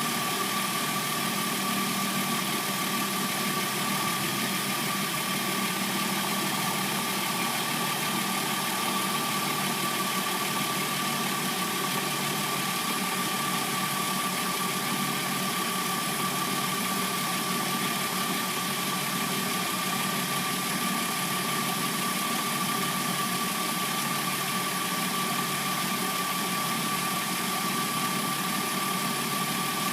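Replacement engine of a 2006–09 Hyundai Sonata idling steadily once warmed up. It has a constant whine and a faint noise that the owner takes for the timing chain clacking.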